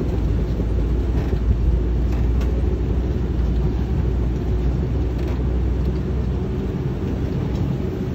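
Safari ride truck driving along a dirt track, heard from inside its open-sided body: a steady low engine and road rumble, the deepest part easing about two-thirds of the way through.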